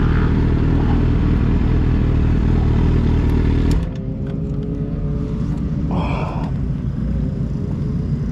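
Yamaha sport bike's engine running at low speed. Its sound drops off suddenly about four seconds in to a lower, steady idle as the bike comes to a stop. A short squeak comes about six seconds in.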